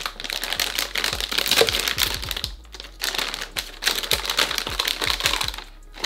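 Metallized anti-static shielding bag crinkling as hands work a graphics card out of it, a dense run of crackling with a short pause about two and a half seconds in.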